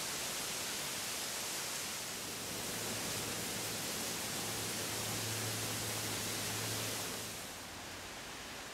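Steady, even hiss with no distinct events, joined by a low hum in the middle that fades out; the hiss drops slightly near the end.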